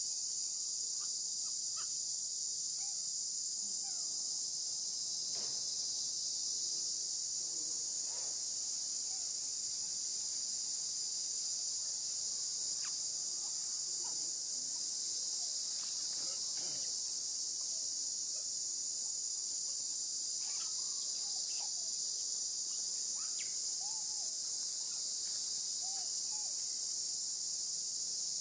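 Steady, unbroken high-pitched drone of an insect chorus in forest, with a few faint short chirping calls scattered through it.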